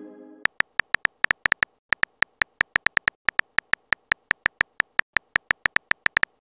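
Keyboard typing sound effect of a texting app: a quick, uneven run of short key clicks, about six a second, as a message is typed letter by letter. At the start the tail of a chime fades out.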